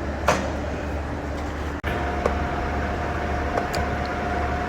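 Victor 1640B engine lathe running under power in its low speed range, a steady mechanical hum with a click about a third of a second in. From about two seconds in, a steady high whine joins the running noise.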